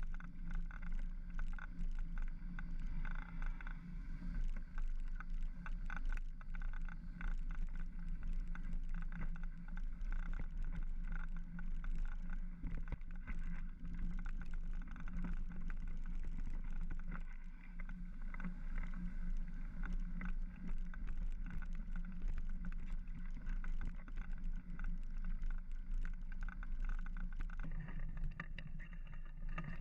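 Mountain bike ridden along a dirt trail: steady tyre rumble with constant small rattles and clicks from the bike going over bumps.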